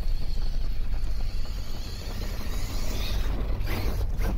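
Losi LMT radio-controlled monster truck driving on dirt: the electric motor and drivetrain give a high whine that holds steady, then fades and wavers about three seconds in, over a steady low rumble. A few sharp knocks come near the end.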